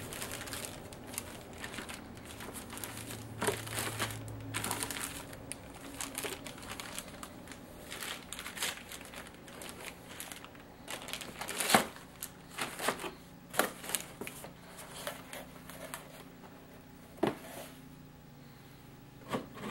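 Clear plastic bags holding plastic model-kit parts trees crinkling and rustling as they are handled and packed back into a cardboard box, with a few sharp knocks in the second half.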